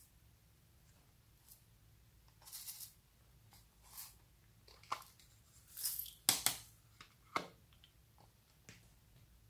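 Slime being worked by hand: a scattering of short, sticky crackles and squelches, several close together about six seconds in.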